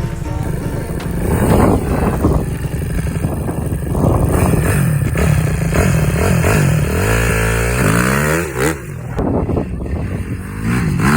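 Honda CRF270 motorcycle engine running after a rebuild, its pitch rising and falling as it is revved up and dropped back several times.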